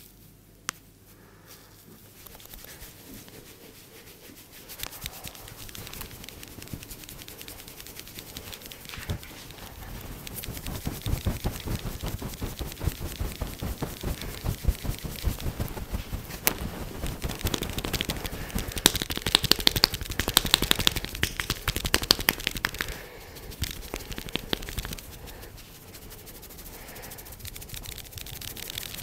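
Hands working vigorously on a person's head and hair during a head massage: a fast, dense patter and crackle of strokes that grows louder through the middle and eases off near the end.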